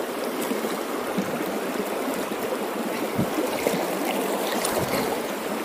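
Shallow river current running steadily over a gravel bed.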